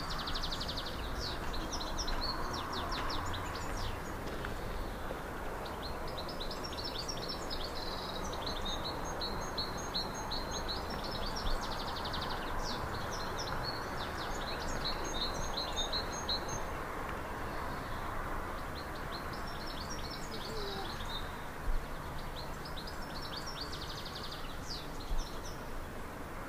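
Songbirds singing: repeated high chirps and rapid trills from more than one bird, pausing briefly now and then, over a steady rushing background noise.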